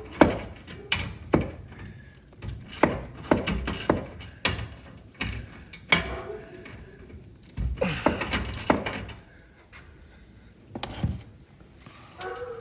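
Irregular sharp metallic clanks and knocks, a dozen or more over the stretch, some in quick clusters, from hands and tools working on a garage door's track and hardware to free the door that has come off its track.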